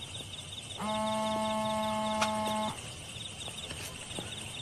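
A single steady electronic tone, held for about two seconds without changing pitch, over a faint rapid ticking.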